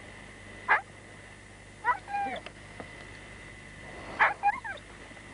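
A dog giving short high yelps and whines in three brief bursts, each cry sliding down in pitch.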